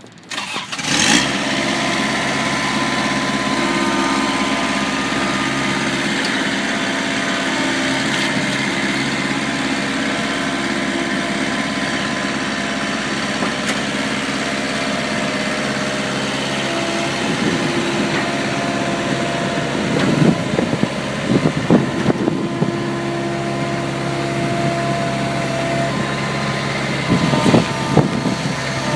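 Kubota diesel engine of a Jacobsen HR5111 four-wheel-drive rotary mower running steadily, starting about a second in. A few short louder noisy bursts come through about two-thirds of the way in and near the end.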